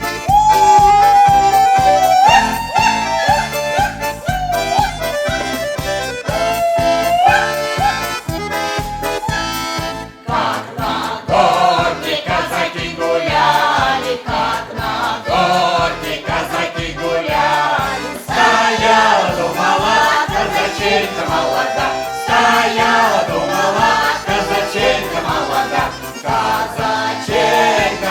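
An accordion plays a lively introduction over a steady bass beat. About ten seconds in, a veterans' choir comes in singing a Russian folk song to the accordion.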